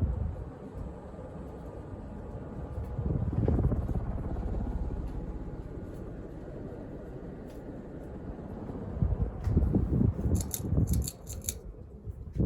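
Fasco Great Room ceiling fan running on high: steady air noise from the five-blade fan, with a couple of louder low swells and no bearing noise from its original bearings. A few sharp clicks come near the end.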